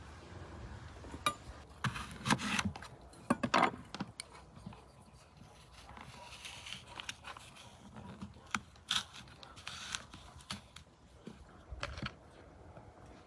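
Handling sounds of fruit being prepared by hand: short scrapes, knocks and clicks as apples and oranges are picked up and set down on a wooden board, and a spoon scrapes the core out of a halved apple.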